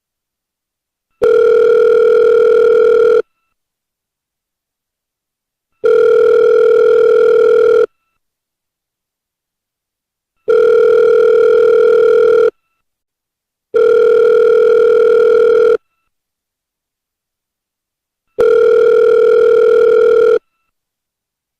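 Telephone ringback tone of an outgoing call, the ringing a caller hears while waiting for an answer: a steady low tone about two seconds long, sounding five times with silences between, one silence shorter than the rest.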